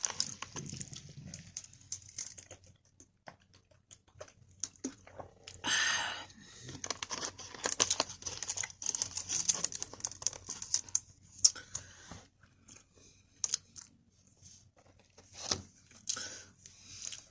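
Plastic food packaging crinkling and being handled, with a louder tearing rustle about six seconds in, mixed with close-up chewing and mouth sounds while eating a durian-filled sticky-rice sweet.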